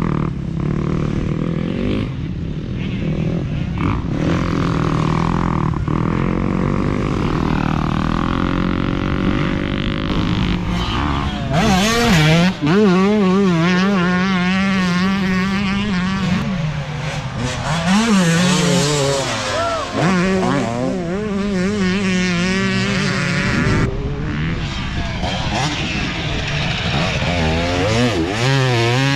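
Dirt bike engines revving on a motocross track, the pitch rising and falling again and again with throttle and gear changes. A nearer bike is louder from about twelve seconds in.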